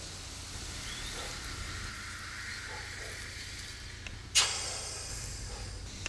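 Steady hiss of compressed air from a pipe-lining inversion chamber as air pressure pushes a resin-soaked liner into the old sewer pipe, turning it inside out. About four and a half seconds in there is a single sharp, loud burst that dies away within half a second.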